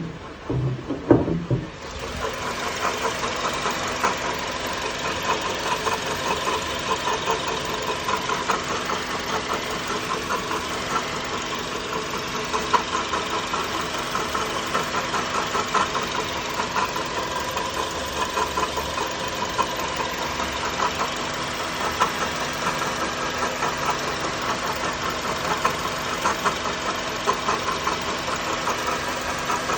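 Honda Element's 2.4-litre four-cylinder engine idling steadily with a fast, even ticking rattle over the running sound, preceded by a few knocks in the first two seconds. This is the mystery noise the owner first blamed on the idler pulley, which a new pulley did not cure, and which he says almost sounds like the alternator, though it tests fine.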